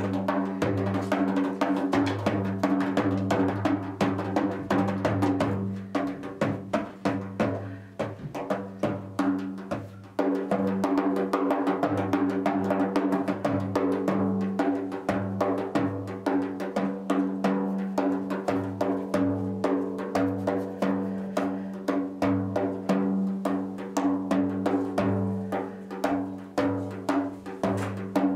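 Large frame drum played with the hands in a fast, continuous run of finger strokes over the drum's low ringing tone. The playing eases off about six seconds in and comes back in strongly about ten seconds in.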